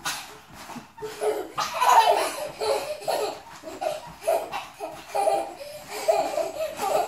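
Two young girls laughing in short, regularly repeated bursts while bouncing on a small trampoline.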